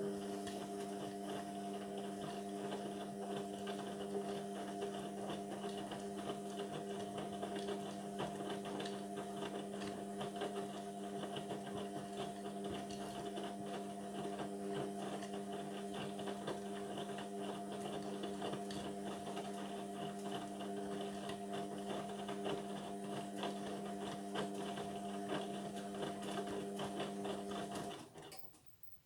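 Indesit washing machine running mid-cycle: a steady hum with a crackly hiss over it, which cuts off abruptly about a second before the end.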